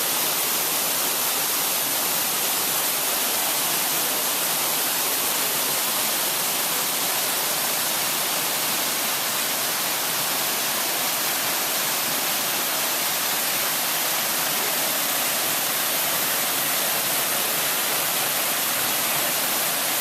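Rainforest waterfall: a steady rushing of falling water, even and unbroken throughout.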